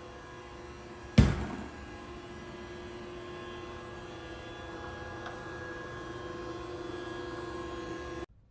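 Robot vacuum cleaner running with a steady motor hum, with a single loud thump about a second in. The sound cuts off suddenly near the end.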